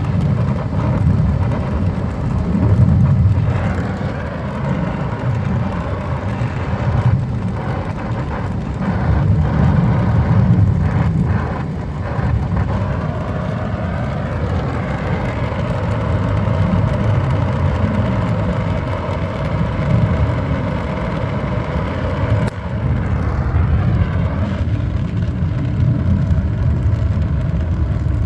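Brazing torch flame burning steadily at the refrigerant line joints of a replacement AC compressor, with a few light clicks in the middle.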